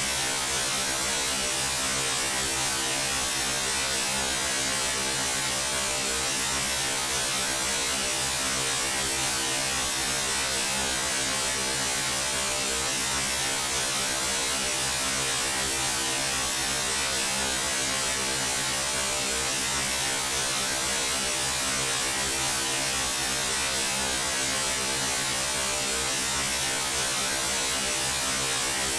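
A steady, unchanging electrical or motor hum with a constant hiss over it.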